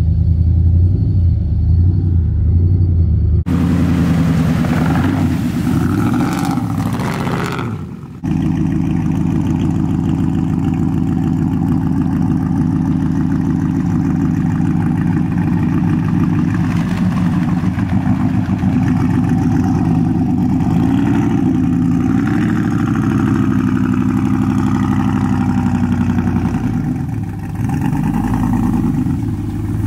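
Lifted Chevy Silverado Z71 pickup's engine running and being revved, the pitch rising and falling several times, with abrupt jumps in the sound about 3.5 and 8 seconds in.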